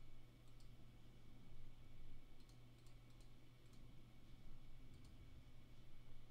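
Faint computer mouse clicks, a few scattered ones, over a steady low electrical hum.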